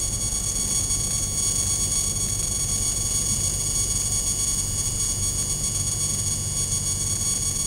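Cabin drone of a light single-engine propeller aircraft on final approach: a steady, even engine and propeller hum with a thin high whine above it.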